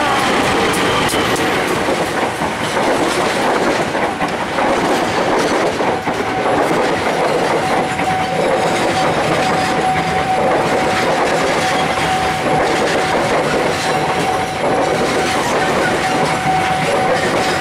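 Diesel-hauled passenger train passing close by: the locomotive goes past at the start, then the coaches roll by with their wheels clattering over the rail joints. A steady high tone sounds over the train through much of it, fading for a few seconds early on.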